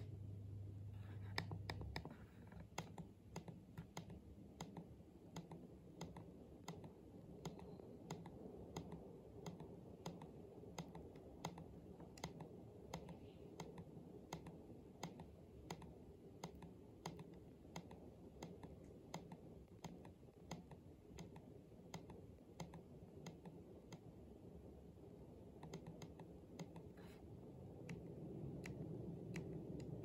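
Buttons on a Mitsubishi air conditioner remote controller being pressed over and over, a long run of small clicks about two a second, as the mode and set temperature are stepped through. A low hum sits under the clicks and grows louder near the end.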